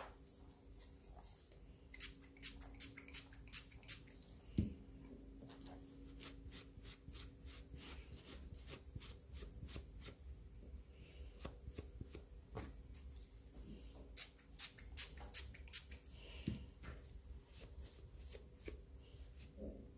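Faint, irregular clicks and light rustling from hands handling small craft items, in short clusters, over a low steady hum.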